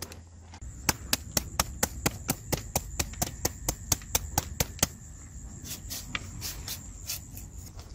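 Quick, even chopping strikes into a raw green papaya, shredding it for som tam: sharp chops about four or five a second, thinning out and softening in the last few seconds.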